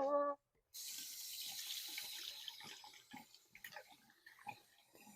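Water from a bathroom tap running into the sink for about two seconds, then dying away into faint drips and small clicks.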